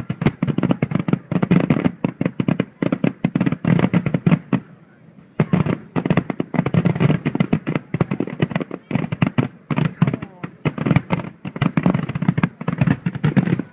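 Aerial fireworks shells bursting in a rapid barrage, a dense string of bangs and crackles, with a brief lull about five seconds in.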